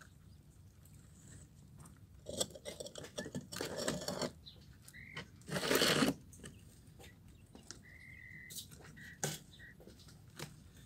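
Caged quail pecking and tearing at collard leaves: a run of small pecking taps, with two louder bursts of leaf rustling about two seconds in and around six seconds. A few short high calls from the quail come in the second half.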